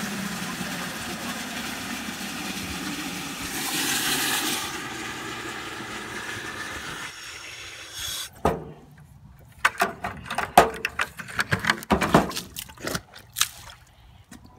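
Water running steadily into a plastic bucket for about seven seconds, briefly louder about four seconds in, then cut off. It is followed by a run of sharp knocks and crunches.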